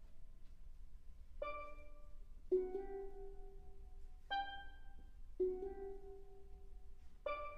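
Steelpan orchestra playing a slow, quiet passage: five chords struck a second or two apart, each left ringing and fading before the next.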